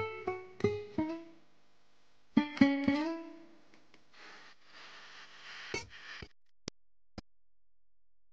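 Solo plucked guitar music: quick runs of picked notes that ring and die away, with a pause between runs, then a softer stretch and a few faint clicks near the end.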